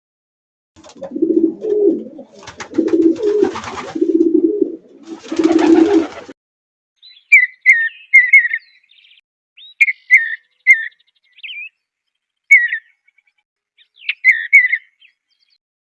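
Birds calling: a low, repeated cooing for the first several seconds, then short high chirps, each dropping in pitch, given in small groups of two or three.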